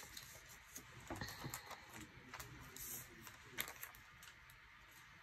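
Faint rustling and crinkling of paper and a sticker sheet as a sticker is peeled from its backing and pressed onto a planner page, with scattered soft clicks, the loudest about three and a half seconds in.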